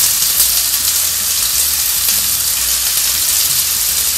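Chopped linguiça sausage frying in olive oil in a hot pan, with a steady sizzle.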